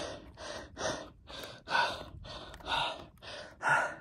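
Heavy, rapid breathing of a man running uphill, hard breaths coming about twice a second.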